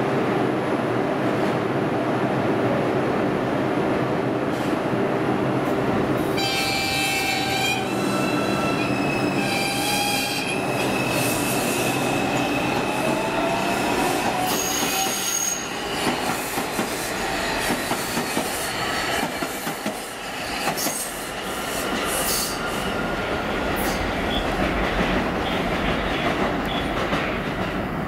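Bombardier R142 subway train with Alstom ONIX AC traction motors running, wheels rumbling on the rails. About six seconds in, the IGBT inverter sets up a stack of stepped electronic tones, and from about eleven seconds a whine rises in pitch as the train accelerates.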